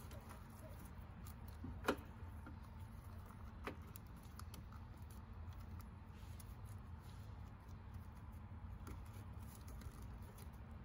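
Gloved hands handling a plastic multi-pin wiring-harness connector and its wires: a few small plastic clicks and ticks, the sharpest about two seconds in and another near four seconds, over a low steady hum.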